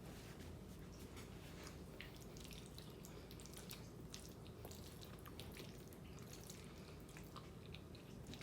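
Faint, wet mouth clicks and chewing of someone eating creamy fettuccine alfredo, scattered and irregular over a low steady room hum.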